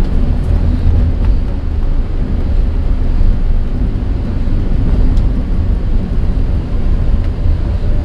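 Loud, steady low rumble of a moving vehicle, with wind buffeting the microphone.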